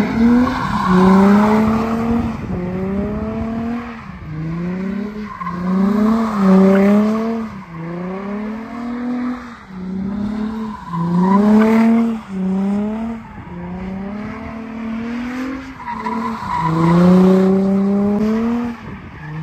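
Nissan 350Z's V6 engine revving up and dropping back over and over, about every one to two seconds, as the car spins donuts with its rear tyres squealing and skidding.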